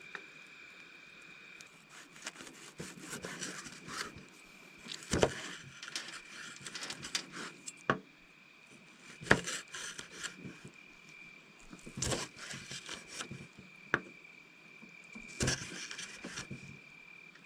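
Knife cutting vegetables on a wooden chopping board: irregular sharp knocks and short scrapes. A steady high-pitched insect drone runs underneath.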